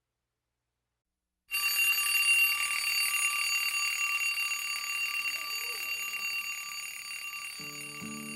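A bell-like ringing of several high steady tones, starting suddenly about a second and a half in and slowly fading. Music begins near the end.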